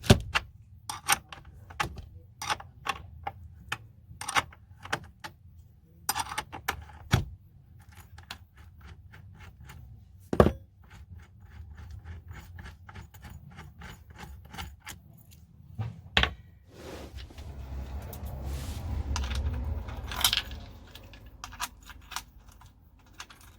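Metal tools and fittings clicking and clinking irregularly while a camper van's inverter and battery system is disconnected and removed, with a couple of sharp knocks. Near the end, a few seconds of low scraping and rustling as parts are pulled out and handled, with one loud clack.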